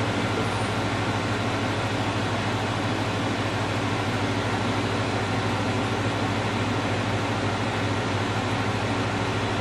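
Steady low machine hum under an even hiss, with no pulses or changes.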